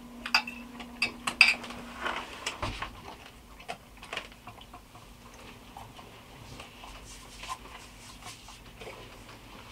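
A metal fork clinking and scraping against a plate as chicken is picked apart: a few sharp clinks in the first three seconds, then fainter taps.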